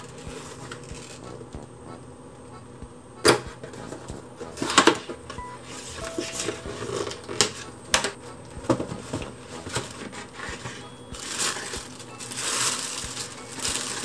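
Cardboard gift box handled and opened on a table: several sharp knocks and clicks of the carton, then paper wrapping rustling in the last few seconds.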